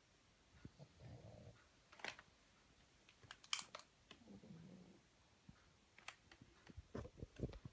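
Pug snoring faintly in its sleep: two soft snoring breaths a few seconds apart, with several light clicks in between.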